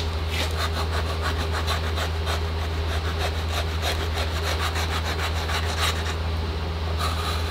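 Wooden block rubbed rapidly back and forth over Delft clay packed into a casting flask half, a dry scraping at about four to five strokes a second, smoothing and firming the packed sand.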